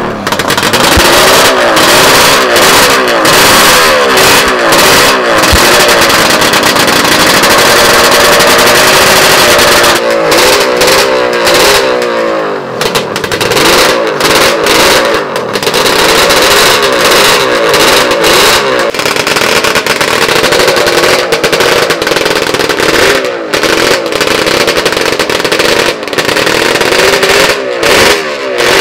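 Suzuki TR750 two-stroke triple racing engine run on a roller starter and blipped up and down over and over, held at steady revs for a few seconds midway. It is very loud, with sharp cracks from the exhaust among the revs.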